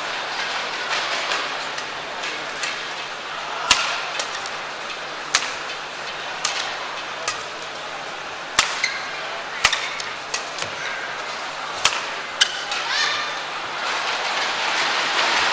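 Badminton rally: sharp racket strikes on the shuttlecock about once a second, with a few short shoe squeaks on the court over a steady murmur of the arena crowd. The crowd noise swells near the end as the rally finishes.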